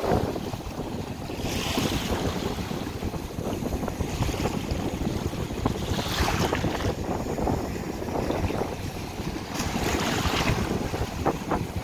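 Wind buffeting the microphone, with ocean surf breaking against a lava-rock wall and washing up the sand in three hissing surges.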